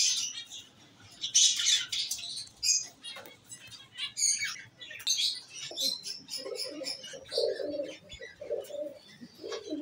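Pigeons flapping their wings in short bursts, then from about six seconds in a pigeon cooing over and over.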